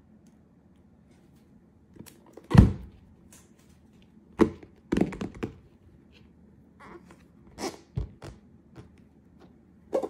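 A shrink-wrapped cardboard box set down on a table with a thunk, then handled and turned over, giving scattered knocks and rustles.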